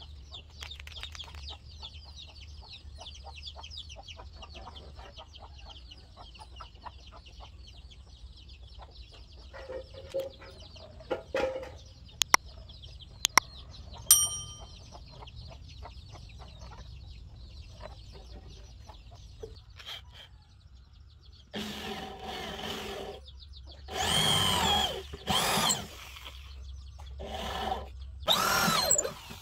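A corded electric drill boring into a wooden board, run in several short bursts in the last third, its motor whine rising and falling with each start and stop. Before that there is a high chattering in the background and a few sharp clicks near the middle.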